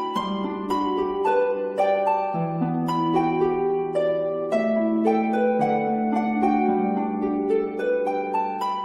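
Background music: a gentle melody of plucked, harp-like notes, several a second, over held lower notes.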